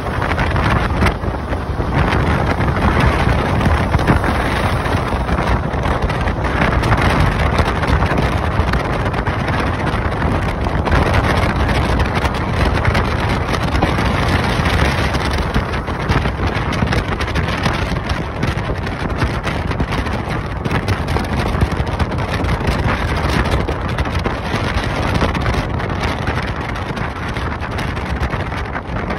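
Steady rush of wind on the microphone and road noise from a moving vehicle travelling at speed, with no let-up.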